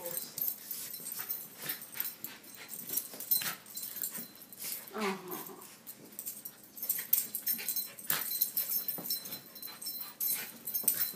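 A Pomeranian and a cairn terrier play-fighting: quick scuffling and clicks throughout, with a short dog call falling in pitch about five seconds in.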